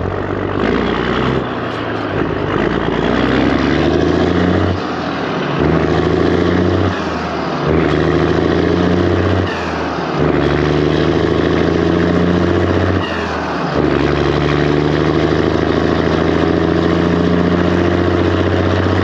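Kenworth Texas bed truck's diesel engine pulling away through the gears. Its pitch climbs in each gear and drops at each of about five shifts.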